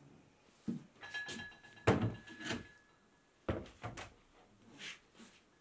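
Handling noise: a run of light knocks and thuds with rustling between them, the loudest about two seconds in, and a faint steady high tone for a couple of seconds near the middle.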